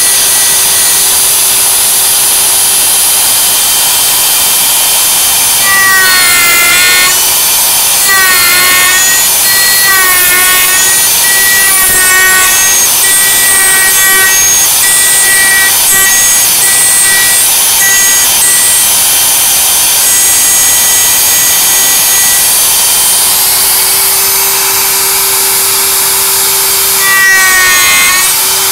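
CNC router spindle running with a dovetail bit, cutting dovetails in mahogany: a steady high whine. From a few seconds in, and again near the end, its pitch dips and recovers about every two seconds as the bit moves through the wood.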